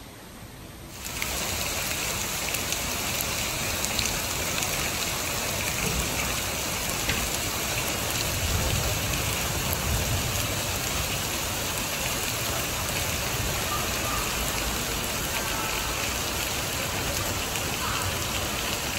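Heavy rain pouring down onto a street, balconies and rooftops: a steady, dense hiss that starts suddenly about a second in.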